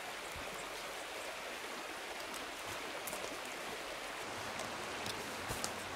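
Steady rushing of a river, with a few faint knocks of boots stepping on the log stairs.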